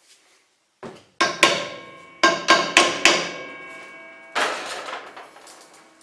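Hammer tapping a metal pulley further onto the arbor of a Covington 30-inch slab saw: two sharp metallic strikes, then four more in quick even succession, each leaving the pulley ringing. A brief rougher clatter follows near the end.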